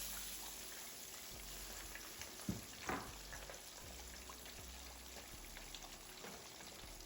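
Fish pieces frying in hot oil: a faint, steady sizzle with fine crackling. About two and a half and three seconds in there are two brief knocks.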